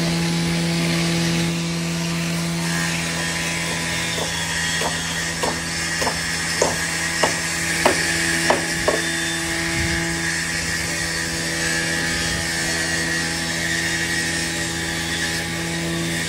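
Electric woodworking power tools running steadily on timber, with a constant motor hum. Between about four and nine seconds in, about eight sharp knocks come roughly two-thirds of a second apart.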